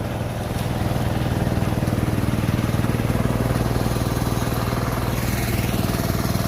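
A small engine running steadily at an even pace, getting a little louder about a second in.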